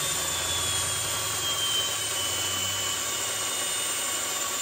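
Cordless drill running steadily with a deburring bit working the edge of a bolt hole in a cast-iron Toyota 2JZ engine block, its high motor whine sinking slowly in pitch.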